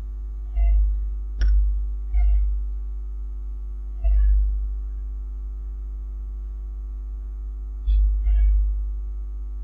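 Wooden spatula stirring and scraping dry-roasting grated coconut with shallots and chillies in a nonstick kadai: about six short scrapes and taps, one a sharp click, over a steady hum.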